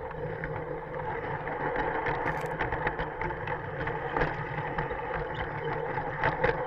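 LGB G-scale garden-railway train running, heard from a camera riding on its wagons: the steady drone of the locomotive's electric motor and gearing, with the wheels rolling and clicking irregularly over the track.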